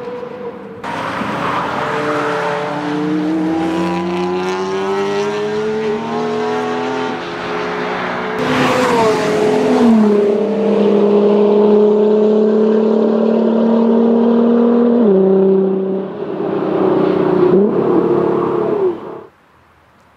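Porsche Carrera GT's V10 engine accelerating hard, its note climbing steadily and then stepping down at upshifts, heard in several clips joined together. The engine sound cuts off about a second before the end.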